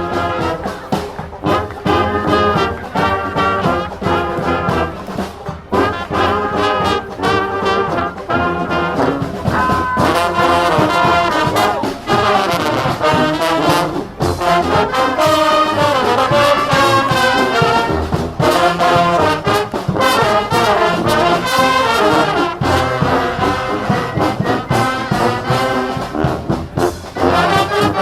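Street marching band playing a tune: trombones and trumpets carry the melody over drums keeping a steady beat.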